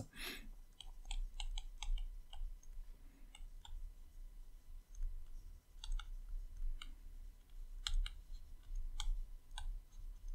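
Stylus tapping and ticking on a tablet screen during handwriting: light, irregular clicks, several a second in clusters, over a low steady electrical hum.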